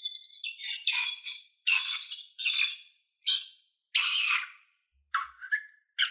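Slime and rubber balloons being handled: about eight short, high-pitched bursts in a row, each under half a second.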